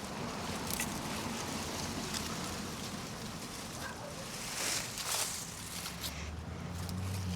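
Rustling and scraping of hands and tools digging sweet potatoes out of garden soil and vines, with two louder scrapes about five seconds in. A low steady motor hum starts near the end.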